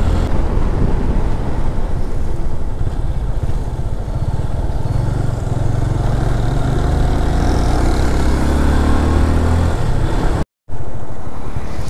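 Motorcycle engine running on the road, with steady wind rush over the microphone. The sound drops out for a split second near the end.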